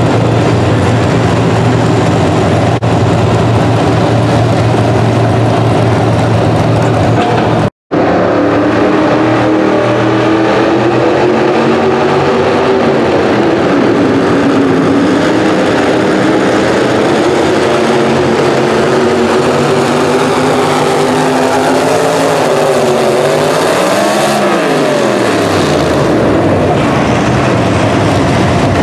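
Pro stock mini truck pulling engines. First a truck runs steadily while hooked to the sled. After a cut, a truck pulls the sled at full throttle, its revs sinking slowly under the load, rising briefly near the end, then dropping off sharply as the pull ends, before a truck runs steadily again.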